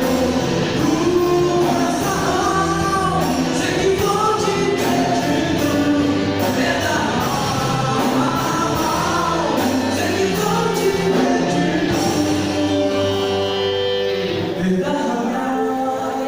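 Live Christian band playing a gospel worship song: sung vocals over a full band of drums, bass, keyboards and guitars.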